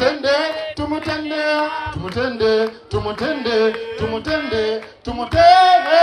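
Singing over music, with the bending pitch of a solo voice and hand claps keeping time.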